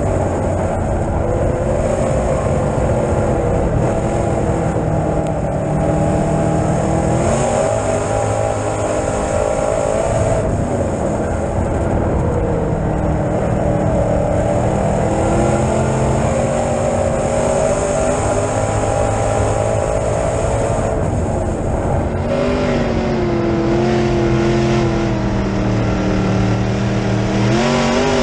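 B-Modified dirt track race car's V8 engine running at racing speed, heard from inside the cockpit, its pitch rising and falling repeatedly as it comes off and back onto the throttle, with a deeper dip a little before the end that climbs sharply again.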